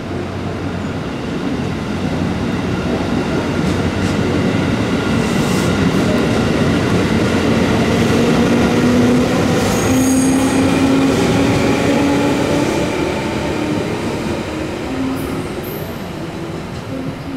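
JR West 213 series electric train pulling away from a station: its traction motors and gears whine, rising in pitch as it gathers speed, with a few wheel knocks and a brief high wheel squeal about ten seconds in. It is loudest as the cars pass, then fades as the train draws away.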